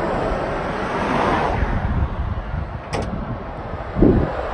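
A car on the move: steady road and engine noise, with a sharp click about three seconds in and a low thump about a second later.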